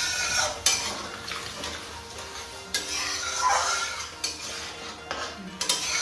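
Long metal spatula stirring and scraping a wet masala in a metal kadai, clinking against the pan a few times, while the masala sizzles as it fries with a little added water.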